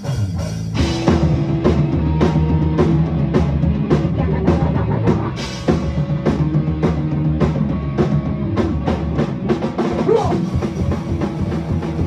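Ska-core band playing live: drum kit and electric guitar at full volume, the whole band coming in together within the first second.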